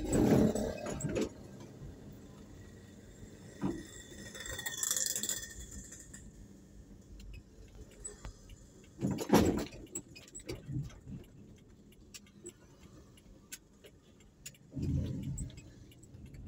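Light rattling and jangling from a camera moving along a bumpy street on a vehicle, broken by a few short low thumps. A motorcycle passes close near the end.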